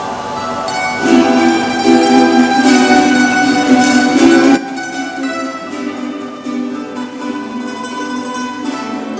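Music with plucked string instruments. It is loud for the first few seconds and drops off abruptly about four and a half seconds in, then goes on more quietly.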